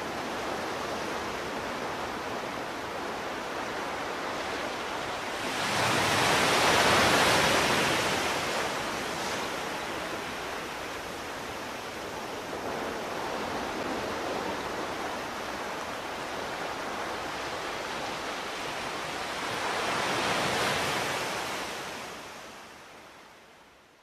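Ocean surf: a steady wash of noise with two waves swelling up and falling back, one about six seconds in and another about twenty seconds in, then fading out near the end.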